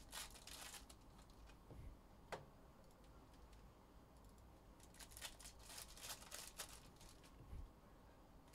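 Faint crinkling and rustling of plastic trading-card pack wrappers being torn open and handled, in two short spells with a single click between them.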